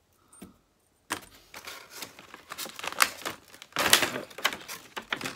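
Small metal keys and a cheap toy padlock jangling and clicking as they are handled, starting about a second in as an irregular run of light rattles with a few sharper clicks.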